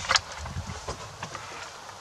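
Movement and handling noise as the camera is swung around inside a photo blind: a sharp click right at the start, then soft low thumps and a few faint ticks.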